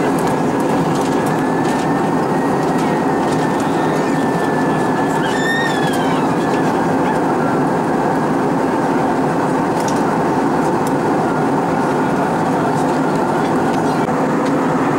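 Steady cabin noise of an Airbus A320-232 in cruise: an even rush of airflow and engine noise heard from a window seat over the wing.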